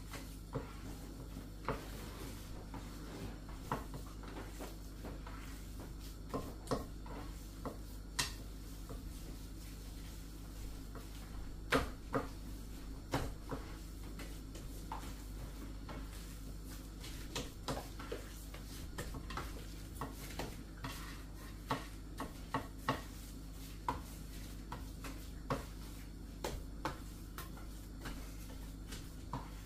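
Hands kneading minced pork and beef in a white enamel plate: irregular soft clicks and knocks as fingers and the plate hit the enamel and the table.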